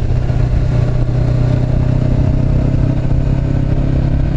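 Honda CB500X's parallel-twin engine running steadily through a Staintune exhaust, a constant even drone.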